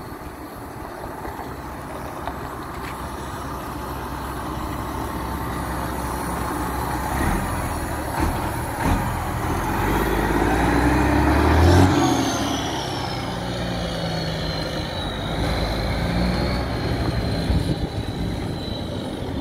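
Freightliner Columbia tractor unit with a Detroit Diesel 12.7-litre straight-six driving up and past. The diesel grows louder to a peak about twelve seconds in, then fades as the truck pulls away, and a high whine falls slowly in pitch as it goes.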